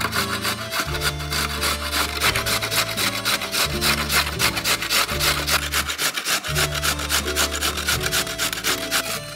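Carrots being grated on a stainless steel box grater: quick, even rasping strokes, several a second, with low background music underneath.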